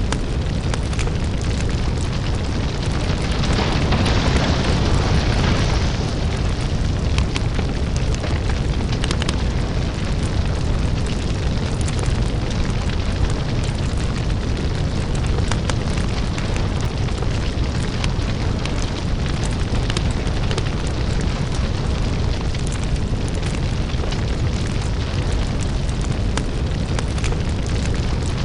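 Crackling lava fire: a deep, steady rumble under dense crackling and popping, with a louder hissing swell about three to six seconds in.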